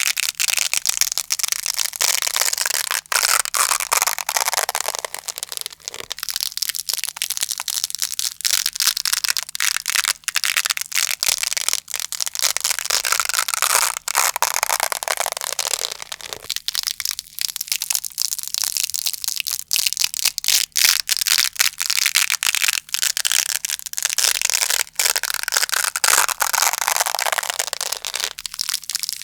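Velcro hook-and-loop fastener being pulled apart close to the microphone over and over, a continuous crunchy crackle of many fine clicks that swells and eases every few seconds.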